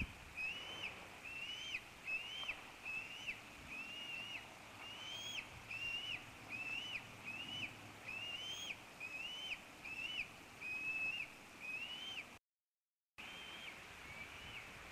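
Bald eagle eaglet begging: a steady series of high, thin, whistled peeps, about one and a half a second, each rising then dropping. The sound cuts out for a moment near the end, then a call or two more come over a faint hiss.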